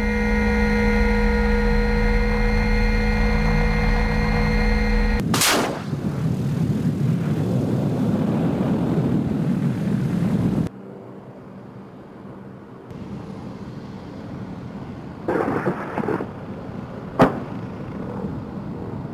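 MD 530F attack helicopter heard from the cockpit, its turbine engine and rotor giving a steady whine over a low rumble. About five seconds in comes a sharp crack of a rocket firing, then a rushing noise. Later, from the ground, a distant rush and one sharp bang of a rocket hitting near the end.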